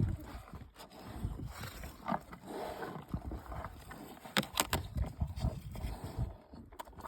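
A zebu eating up close: breathing and chewing noises, with a few sharp clicks about four and a half seconds in.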